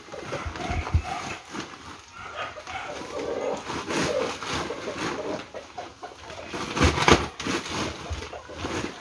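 A nylon fishing net strung with plastic-bottle floats rustles and knocks as it is bundled into a sack, with a louder knock about seven seconds in. Animal calls sound in the background.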